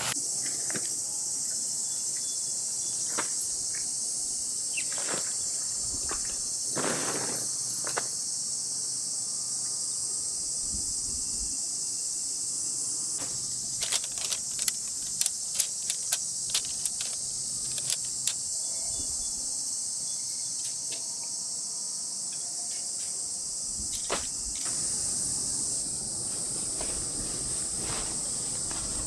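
A steady, high-pitched chorus of summer insects, with a run of light clicks and knocks about halfway through.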